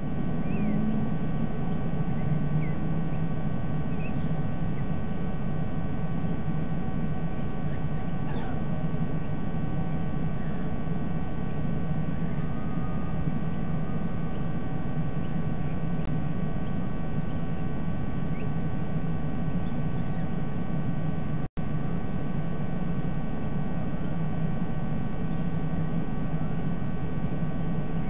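Steady low rumble and hiss of outdoor background noise from a nest-camera microphone, with a few faint steady hum tones and faint short bird chirps now and then. The sound cuts out for an instant about three-quarters of the way through.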